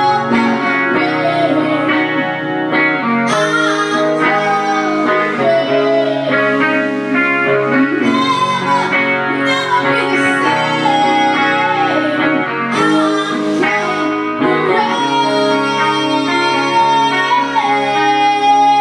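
Instrumental music with guitar: a sustained melody line that slides between notes over steady chords and bass.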